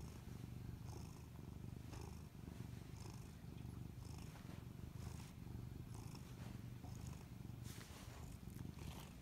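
Domestic tabby cat purring steadily, a deep buzzing rumble with a breathy pulse about once a second.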